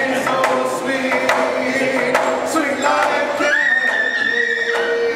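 Two men singing a Mi'kmaq song together, each beating a frame hand drum with a stick at about two beats a second. About halfway through, a high note is held for a couple of seconds above the singing.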